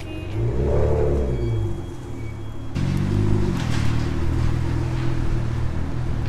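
Car engine accelerating and easing off, its pitch rising and falling, then cut to another stretch of the engine pulling up in pitch about three seconds in.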